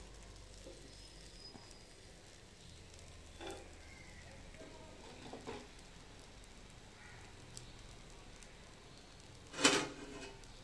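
Dosa cooking on a hot cast-iron tawa, with a faint steady sizzle and a few light scrapes of a metal spatula. A single sharp loud knock comes near the end.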